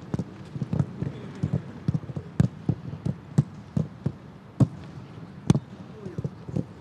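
Footballs being struck in quick passing on a grass pitch: irregular sharp thuds, two or three a second.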